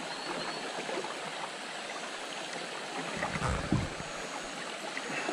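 Steady rush of flowing river water, with a few soft low knocks a little past the middle.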